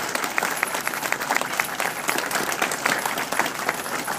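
A large audience clapping: many hands at once, dense and even, not in unison.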